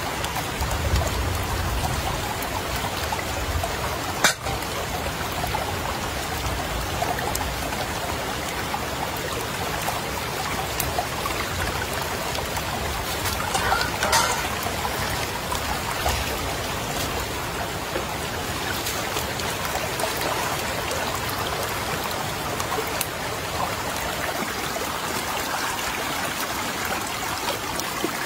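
River water running steadily over a shallow bed, with a sharp click about four seconds in and a short louder stir of water near the middle.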